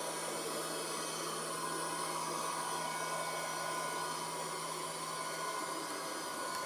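Robot vacuum cleaner running as it cleans the floor: a steady whir with a low hum and a thin, steady whine.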